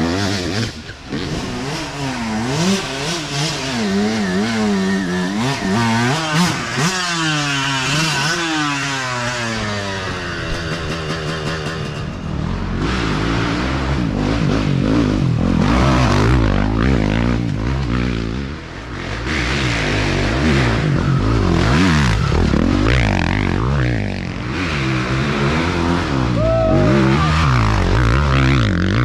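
Off-road dirt bike engines revving hard as the motorcycles climb a dirt trail one after another, the pitch rising and falling with each blip of the throttle. A bike passes close, loud, near the end.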